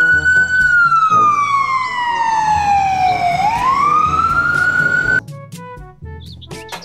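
Ambulance siren wailing: one slow fall in pitch over about three seconds, then a rise, then it cuts off suddenly about five seconds in. Background music plays beneath it and carries on alone after.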